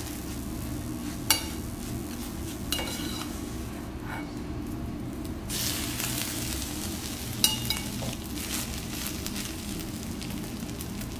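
Metal spatula scraping and clinking in an aluminium rice pot as steamed rice is scooped out onto a hot teppanyaki griddle, with a light sizzle. Three sharp metal clinks ring out, the loudest just over a second in.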